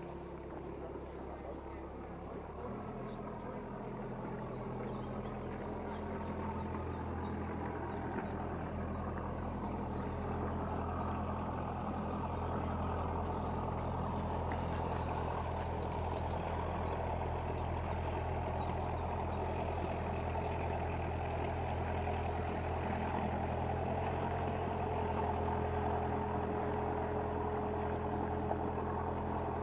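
A boat's inboard engine running at a steady low throttle, its note shifting about three seconds in and growing slowly louder as it draws closer.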